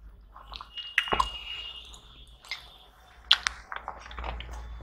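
Close-miked eating by hand: fingers squishing and gathering turmeric rice on a steel plate, then lip smacks and chewing, with a few sharp wet clicks.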